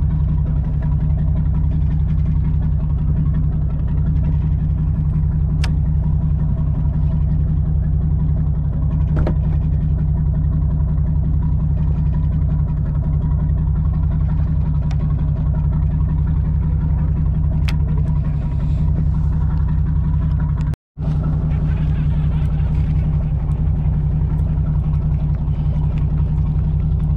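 Charter boat's engine running steadily, a loud low drone, with a brief break about three-quarters of the way through.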